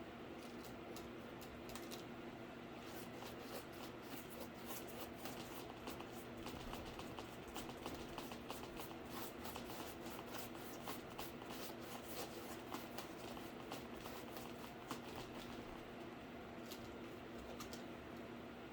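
Faint, rapid scratchy strokes of paint being applied to a cardboard PC case, over a steady low hum.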